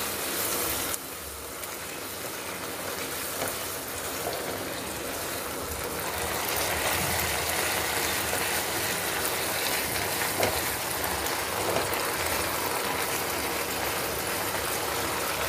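Milk curry sizzling and bubbling in a nonstick pan as it heats toward a boil, stirred with a wooden spatula.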